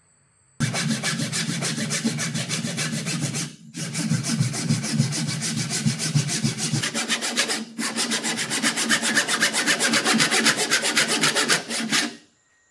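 Handsaw cutting down into the end grain of a wooden post, the teeth rasping through the wood in rapid, even strokes. The sawing starts suddenly, breaks off twice briefly and stops shortly before the end.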